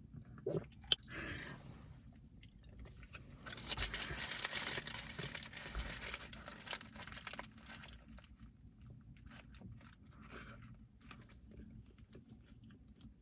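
Close-up eating sounds: crunching and biting into fast food, with a paper food wrapper crinkling and rustling. The rustling is loudest for about four seconds in the middle, and fainter crackles and chewing follow.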